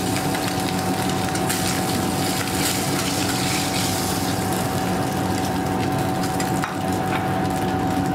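Katla fish pieces frying in hot oil in a kadai, a steady sizzling hiss, with a steady hum underneath.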